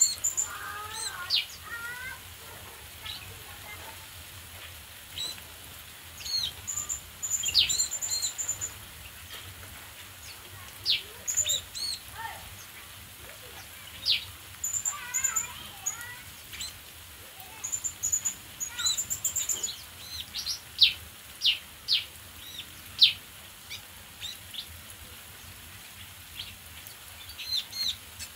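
Several small aviary birds calling: many short, sharp whistled chirps and brief high trills, with a quick lower twitter about a second in and again about halfway through. The chirps come thickest and loudest in the later part.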